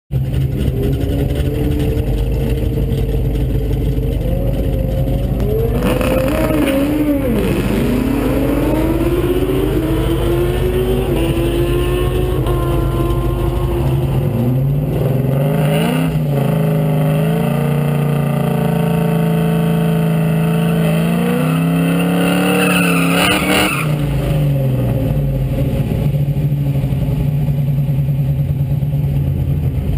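Drag car engine running loudly at a rumbling idle, with the revs wandering up and down, then revved up about halfway through and held high for about ten seconds before dropping back to idle.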